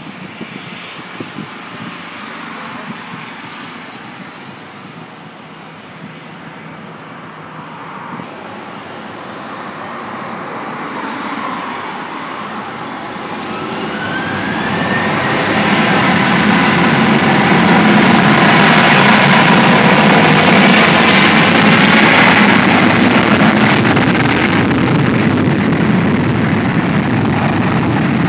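Boeing 737-800's CFM56-7B turbofan engines running on the runway, then spooling up to takeoff thrust with a rising whine about halfway through. They then run loud and steady as the airliner makes its takeoff roll.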